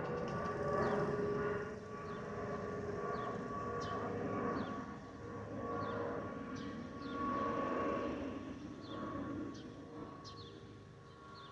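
Airbus A319 passing overhead: jet noise with steady whistling tones from the wing's fuel over-pressure protector (FOPP) cavities, the typical A320-family whine. The sound fades near the end.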